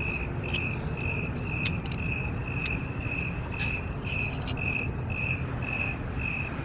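A cricket chirping steadily, about two even chirps a second, over a low background rumble. A few light clicks come from wires being handled.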